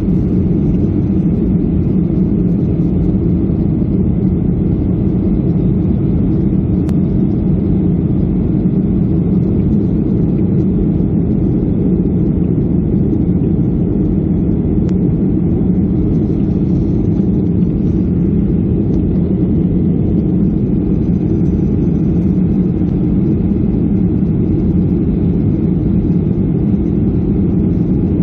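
Steady low drone of an airliner's engines and the air rushing past, heard from inside the passenger cabin in flight.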